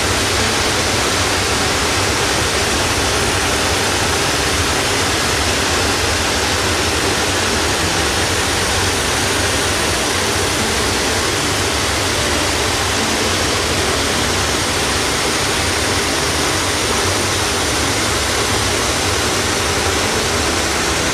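A loud, steady rushing noise, like running water, that keeps the same level throughout and starts and stops abruptly.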